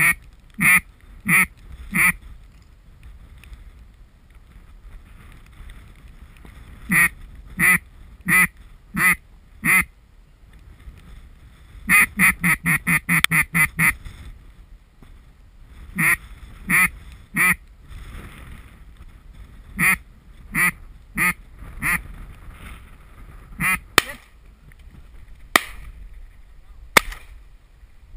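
Loud mallard-style quacking, most likely from a hunter's duck call close to the microphone, blown to bring passing ducks in. It comes in evenly spaced runs of four or five quacks, with a fast run of about ten short quacks about twelve seconds in. A few sharp clicks come near the end.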